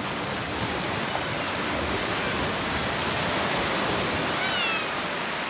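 Small sea waves breaking and washing in over shallow water: a steady rushing surf.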